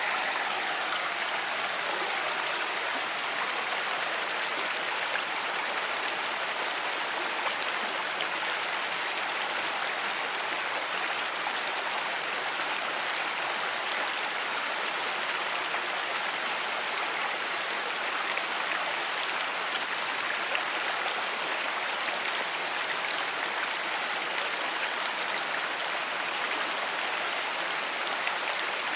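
Moving water of a mountain creek or waterfall, a steady, even rush without breaks.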